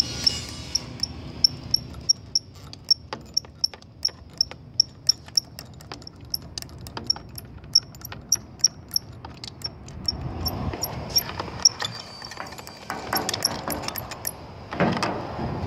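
Hand-pump oil can being worked in a steady rhythm, each stroke giving a short squeaky click, about two or three a second, as oil is squirted onto head bolt threads. The clicking stops a little before the end, giving way to handling noise and a single knock.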